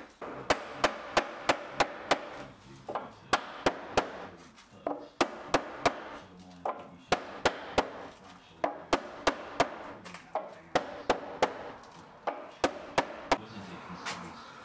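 Hammer blows knocking a tight-fitting oak shelving unit into a wall opening, sharp knocks on wood in runs of about three to six strikes, roughly three a second, with short pauses between runs. The blows stop a little over a second before the end.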